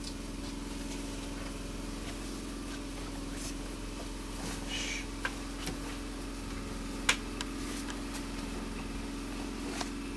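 Steady low machine hum with a few faint, short knocks scattered through it, the clearest about seven seconds in.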